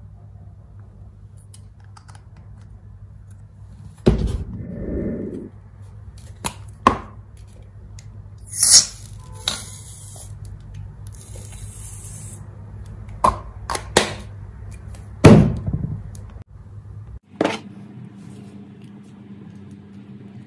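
Glass bowls and a plastic bottle knocked and set down on a foam mat several times. An aerosol can hisses out white foam for about four seconds, starting around nine seconds in. A steady low hum runs underneath and changes near the end.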